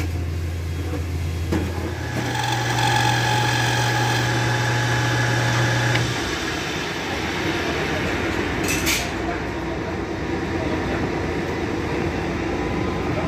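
Metal lathe running, its motor giving a steady hum that steps in pitch about two seconds in and changes again about six seconds in. A short hiss comes just before the nine-second mark.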